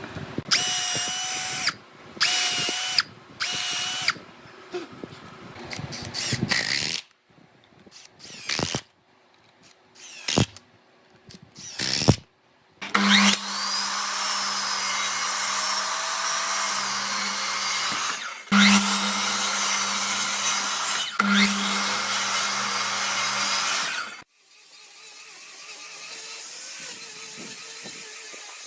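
Handheld electric power tool working wood. It runs in three short whining bursts at first, then in scattered shorter spurts. Later it runs steadily for about eleven seconds, briefly restarting twice, and cuts off sharply.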